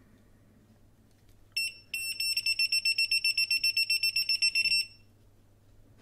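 Non-contact electrical voltage tester beeping: one short beep about one and a half seconds in, then rapid high-pitched beeps, roughly ten a second, for about three seconds before stopping. The beeping is the tester's signal that the wire it is held to is live.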